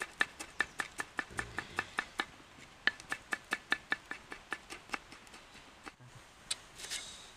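Kitchen knife chopping small chillies on a wooden chopping board: quick, even knife strikes on the wood, about five a second, stopping about five seconds in, followed by a couple of single knocks near the end.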